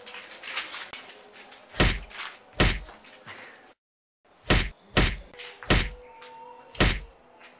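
Punches landing in a staged fistfight: six heavy, sharp thuds with a deep thump, spaced unevenly about half a second to a second apart, over low scuffling noise.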